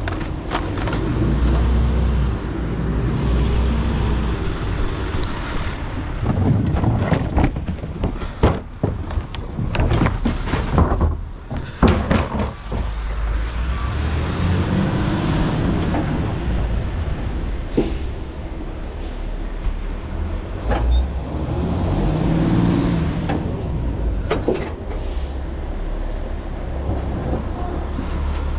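Garbage truck engine running, rising and falling a few times, with a run of sharp clanks and bangs partway through.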